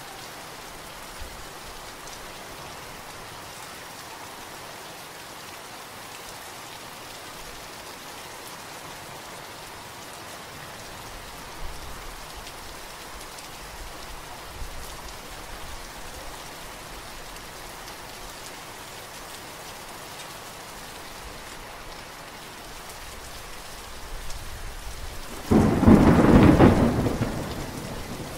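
Steady rain falling, with a loud clap of thunder near the end that rumbles and fades away.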